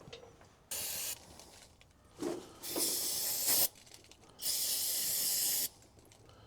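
Pressurised spray hissing in three short bursts, the last the longest, as debris is cleaned out of a small engine's carburetor bowl.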